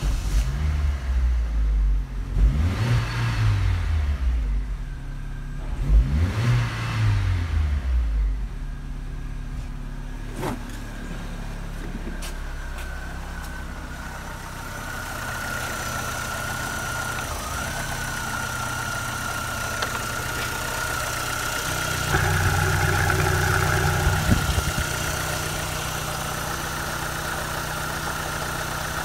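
Opel Astra G's 1.6-litre Z16SE four-cylinder petrol engine revved twice in the first several seconds, each rev rising and falling, then settling to a steady idle. It is heard first from inside the cabin and later close up in the open engine bay.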